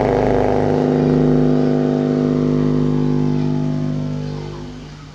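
Freshly reconed 8-inch subwoofer playing a DJ test track during its sound check: a long held tone with many overtones, sliding slightly down in pitch and fading out over the last second or so.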